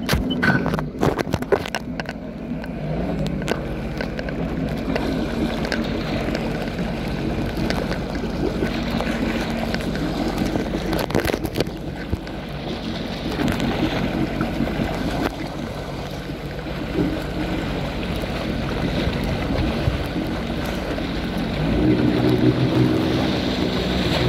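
Jet ski engine running steadily while under way, with wind buffeting the microphone and water rushing past the hull. Near the end the engine gets louder and higher-pitched.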